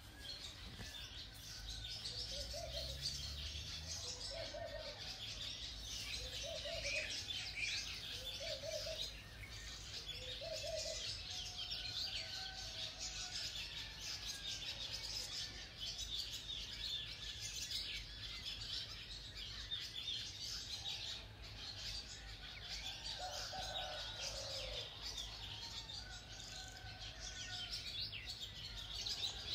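Evening chorus of many small birds chirping densely and without pause. A lower call repeats about every two seconds through the first third and comes back briefly near the end.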